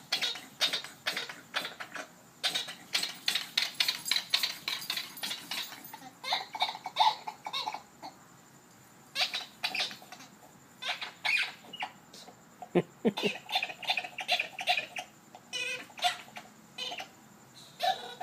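Squeaky dog toy squeaking rapidly and repeatedly as a pit bull mix chews it, in quick runs of squeaks broken by short pauses.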